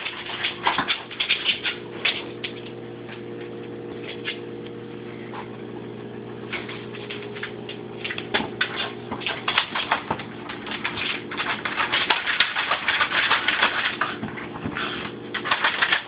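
A corgi scrabbling at a fridge door with its nose, teeth and paws, trying to pry off a magnet: rapid scratchy clicks and scrapes that come thickest in the second half.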